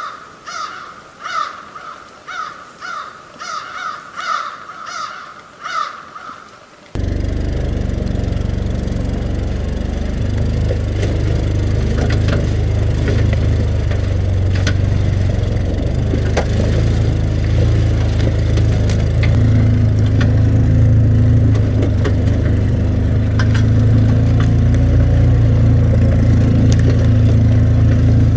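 A repeated high call, about two a second, for the first several seconds. Then an ATV engine comes in suddenly and runs steadily as the machine drives along a rough trail, with scattered knocks and clatter from the machine and its towed trailer.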